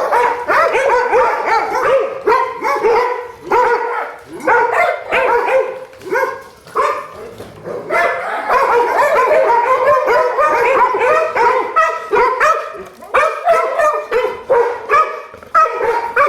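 A pack of pit bulls barking and yipping excitedly together, overlapping calls with only brief lulls.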